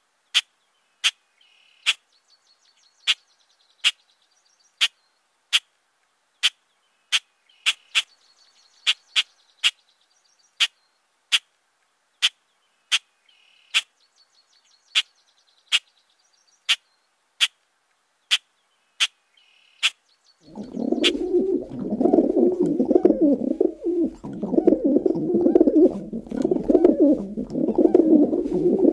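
Added soundtrack loop, not the drone itself. Sharp clicks come irregularly, about one or two a second, with faint bird-like chirps that recur every few seconds. About two-thirds of the way in, a dense low sound cuts in suddenly and carries on.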